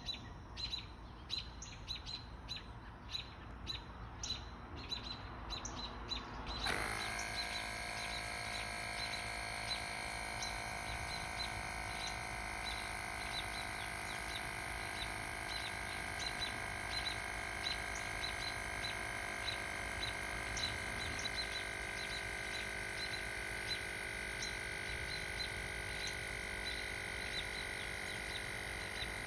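Fanttik APEX portable air compressor switching on about seven seconds in and running steadily, inflating a bicycle tyre. Before it starts, a run of short high ticks, about two a second.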